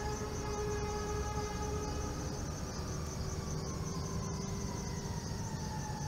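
A siren sounding one long tone that slowly drops in pitch, over a steady high-pitched insect trill.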